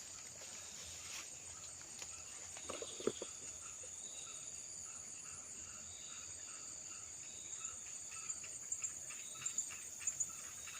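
Outdoor insect chorus: a steady high-pitched drone, joined a few seconds in by a chirping call repeating about twice a second. A few soft knocks or rustles come about three seconds in.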